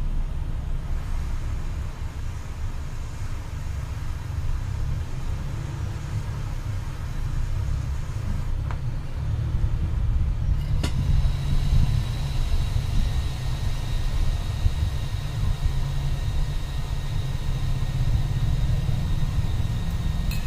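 Hot-air rework station blowing a steady stream of hot air, heard as a low rumble of air rushing, while it melts solder paste in an eMMC reballing stencil. About halfway through there is a single click, after which a faint high whine joins the rumble.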